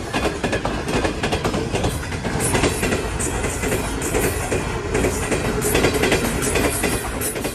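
A Pakistan Railways express train's passenger coaches passing at speed at close range: a loud, steady rush of noise with the rapid clatter of wheels over the rail joints.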